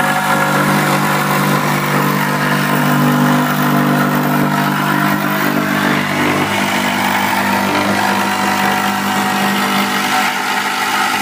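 A motor running steadily and loudly, a hum over a broad whoosh, with its lowest hum dropping away about six and a half seconds in.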